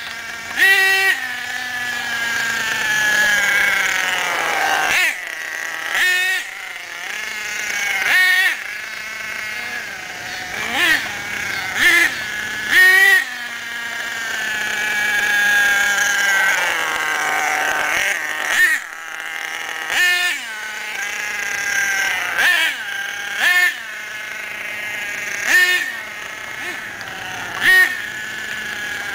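The .46 two-stroke nitro glow engine of an HPI Savage X RC monster truck, buzzing as it is driven in bursts during break-in. Its pitch climbs and falls away in long sweeps, broken by about a dozen short, sharp throttle blips.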